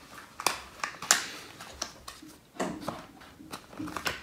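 Small cardboard box being turned over and prodded in the hands, giving a handful of separate light taps, clicks and scrapes of card.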